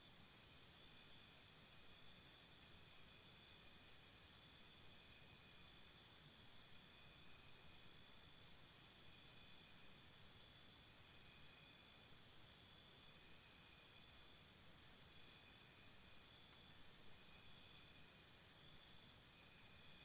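Faint insects chirping: trains of rapid, high-pitched pulses, about five a second, lasting two to three seconds with pauses between, while other insects keep up steady high trills.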